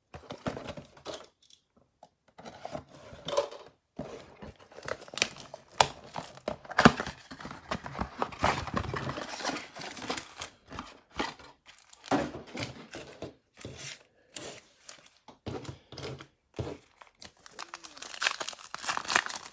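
A shrink-wrapped trading-card box and its foil card packs being torn open and handled: irregular crinkling, tearing and rustling of plastic wrap, cardboard and foil, with a sharp crack about seven seconds in.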